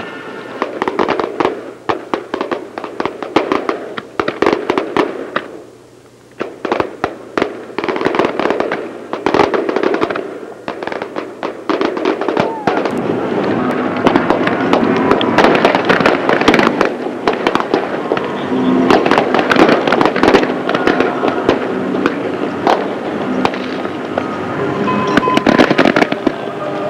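Fireworks display: a string of separate aerial shell bursts and crackling. About halfway through it thickens into a dense, louder barrage of overlapping bangs.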